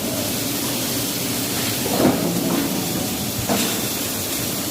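Steady factory machinery noise, a hiss with a low hum under it, during a pipe bending machine trial. A short knock comes about two seconds in and a sharp click about a second and a half later.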